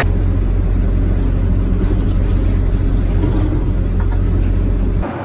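A loud, steady low rumble that cuts off suddenly near the end.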